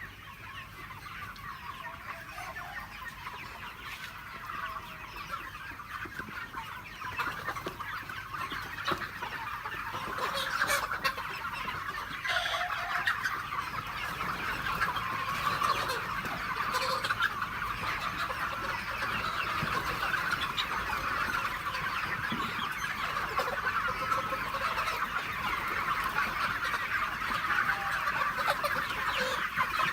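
A flock of free-range chickens clucking, many calls overlapping into a dense chatter that grows louder over the first ten seconds or so, then stays steady.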